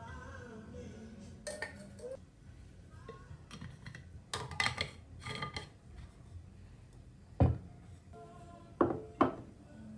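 Kitchenware clinking as dishes and cutlery are handled: a string of sharp ceramic or glass knocks with short ringing. The loudest comes about seven and a half seconds in, and two come close together near the end.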